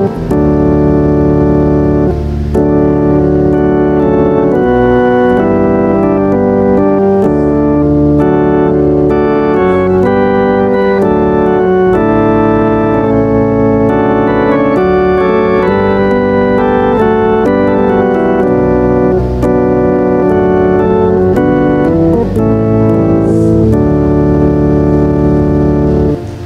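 Church organ playing a hymn in full, sustained chords that change about once a second, stopping just before the end.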